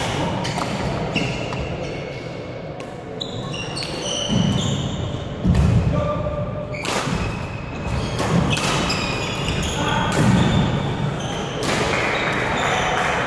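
Badminton rally in a large echoing hall: rackets striking the shuttlecock in sharp cracks, court shoes squeaking on the wooden floor, and footfalls thudding, with faint voices from around the hall.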